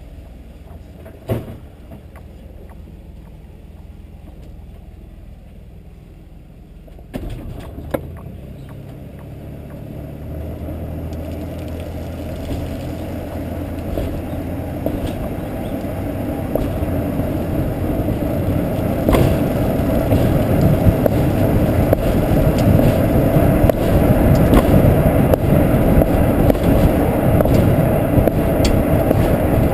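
A boat on its trailer being towed, heard from a camera mounted on the boat: a sharp knock about a second in and a couple more around seven to eight seconds in, then a low rumble of the rolling trailer that grows steadily louder as the rig picks up speed.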